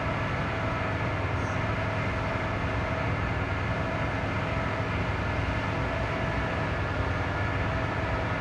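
Steady low rumble and hum inside a car's cabin, with a faint steady whine above it.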